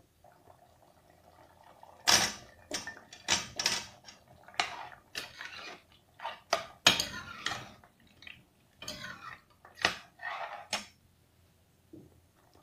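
A steel ladle knocking and scraping against an aluminium pressure cooker pot as turnip chunks are stirred into mutton gravy. The clatter is irregular, a dozen or so knocks and short scrapes, starting about two seconds in and stopping a second or so before the end.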